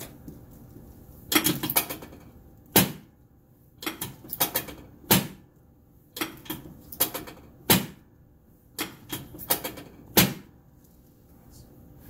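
About fifteen sharp knocks and clacks from a padded chiropractic table as the chiropractor thrusts into the patient's back during a prone spinal adjustment, irregularly spaced, some coming in quick runs of two or three.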